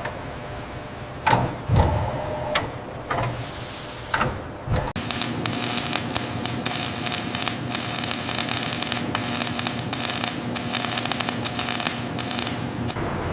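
Several separate knocks, then from about five seconds in a steady, harsh crackling machine noise with a low hum that stops shortly before the end.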